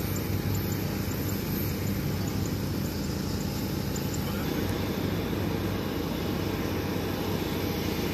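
Steady engine hum of an airfield flight line, a constant low drone with an even rushing noise over it.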